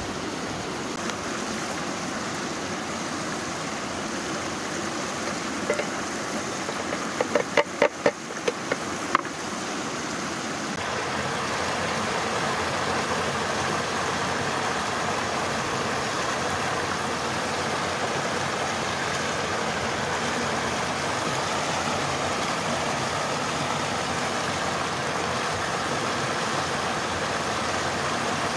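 Mountain stream rushing steadily over rocks in a small waterfall, louder from about eleven seconds in. About seven seconds in, a quick run of short, sharp clinks with a ringing tone.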